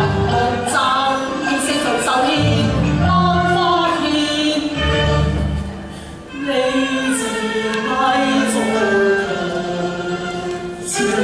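Cantonese opera singing with traditional instrumental accompaniment, a melodic sung line over the band, briefly dipping in loudness about halfway through.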